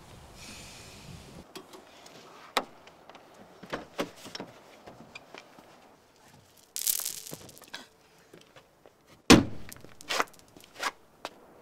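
A person getting out of a car: clicks and knocks of the seatbelt and door, a brief scattering clatter of pills spilling onto the road about seven seconds in, then a heavy thump a little after nine seconds and a couple of shoe steps on asphalt.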